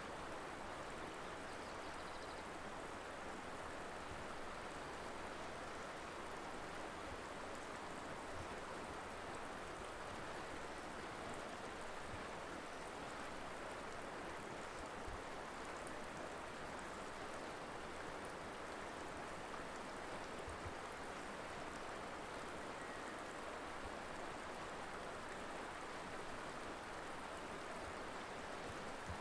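Colorado River flowing over rocks: a steady, even rush of moving water.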